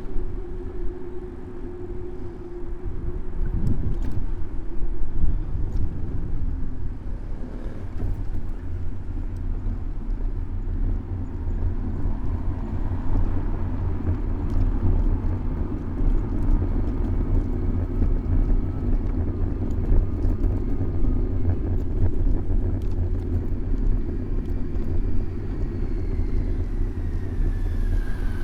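City road traffic heard from a camera mounted on a moving bicycle: a steady low rumble throughout, with a faint whine that falls in pitch near the end, as from a passing vehicle.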